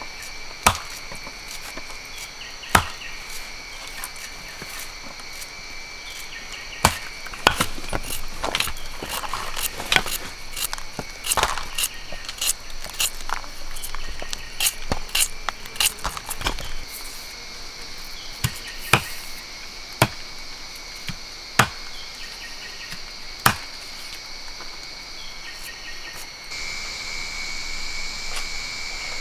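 Large knife chopping charred small animals on a wooden block under a banana leaf: sharp, irregular knocks, some single and some in quick runs, thickest in the middle. Behind them forest insects drone steadily, louder near the end.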